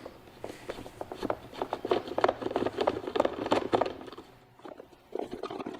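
Screwdriver backing screws out of a jump box's plastic case: a quick run of small irregular clicks and scrapes, thinning out and quieter near the end.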